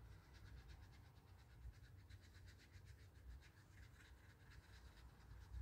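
Near silence, with faint quick scratchy strokes, about five a second, of a paintbrush working watercolour paint back and forth.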